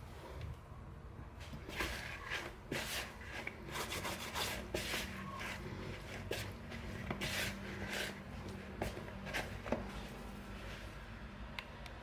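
Hands kneading pizza dough on a work surface: irregular rubbing and pressing strokes as the dough is gathered and worked.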